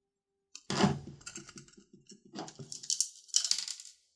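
Plastic LED bulb housings and small loose parts clicking and clattering against a tabletop as they are handled and set down. A sharper knock comes about a second in, followed by a string of light ticks and rattles.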